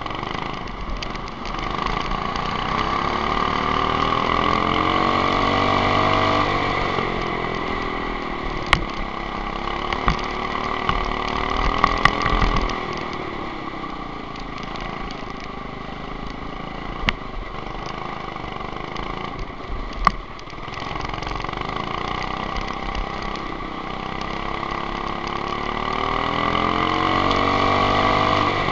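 Go-kart engine at race pace, heard from on board the kart. Its pitch climbs as it accelerates and drops back several times, and there are a few sharp knocks.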